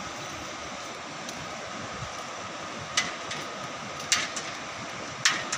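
Footsteps striking a suspension footbridge's deck plates: three sharp steps about a second apart in the second half, over a steady rushing background.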